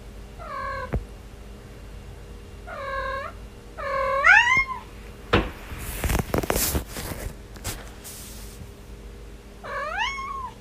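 A young cat meowing four times in short calls, the third one loudest and rising at its end. Between the third and fourth meows there are a few seconds of scuffling noise.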